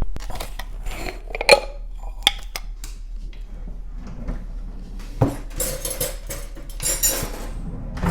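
Clinks and knocks of food containers being picked up and set down on a table, with a sharper knock about five seconds in and two short bursts of scratchy rustling after it.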